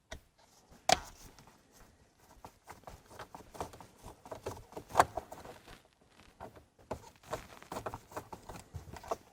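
Faint, irregular clicks and ticks of a T15 Torx driver working out the screws from the plastic steering-column cover, with a sharper click about a second in and another about halfway through.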